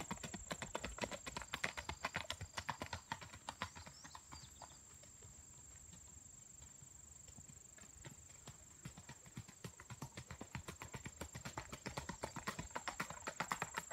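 Hoofbeats of a single-footing stallion on a gravel road: a quick, even four-beat gait. The hoof strikes fade as the horse moves away, then grow louder again as it comes back in the second half.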